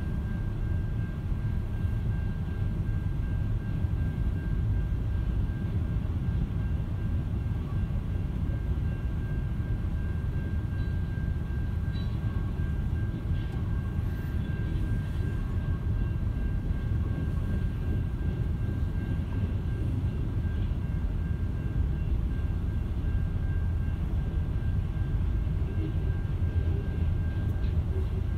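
Norfolk Southern freight train's hopper cars and boxcars rolling past a level crossing: a steady low rumble heard from inside a stopped car, with a thin steady high tone above it.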